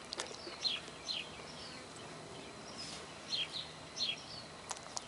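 A small bird chirping: short, high notes that fall in pitch, often two in quick succession, repeated every second or so. A couple of sharp clicks come near the end.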